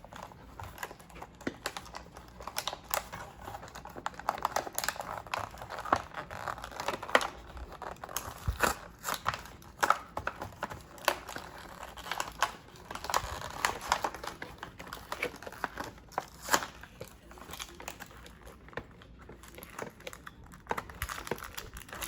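Toy packaging being opened by hand: the box crinkling and rustling, with many scattered clicks and taps.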